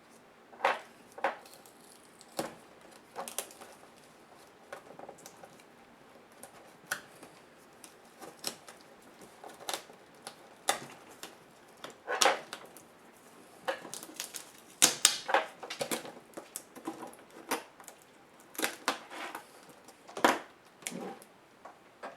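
Plastic and metal laptop parts being handled while the Sony VGN-CR220E's LCD screen assembly is taken apart: irregular sharp clicks, taps and short scraping rattles, coming in clusters.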